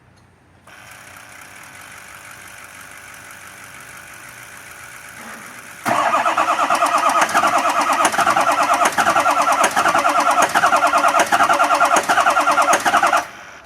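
A Ford 6.0 Power Stroke V8 diesel is being started. A quieter steady hum comes first, then about six seconds in the engine turns over loudly with a fast, even pulse for about seven seconds before it stops abruptly.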